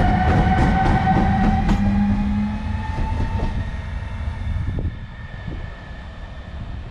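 Newag Dragon E6ACTa electric locomotive passing and moving away: wheels clicking over rail joints at first over a heavy rumble, with a traction-motor whine that rises slowly in pitch, all fading as the locomotive recedes.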